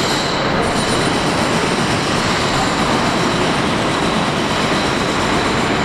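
R46 New York City subway train approaching through the tunnel: a steady rumble of steel wheels on the rails, with a faint high whine over it.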